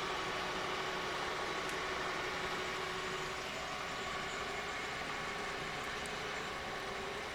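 Kearney & Trecker milling machine running its spindle at 195 RPM on a 1 inch-per-minute power feed, a Criterion boring head taking a cut. It is a steady mechanical hum with a constant whine.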